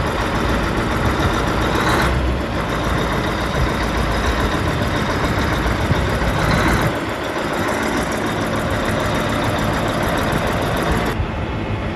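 John Deere 8850 tractor's V8 diesel engine running steadily as the big articulated tractor pulls slowly forward out of the shed.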